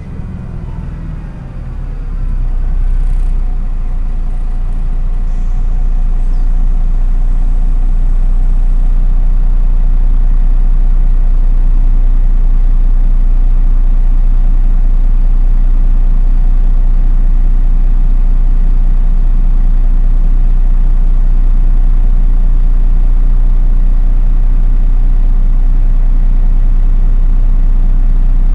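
MAN NÜ 313 bus diesel engine heard from inside the passenger cabin: the engine note falls over the first couple of seconds, then engine and road noise settle into a loud, steady low drone as the bus runs on.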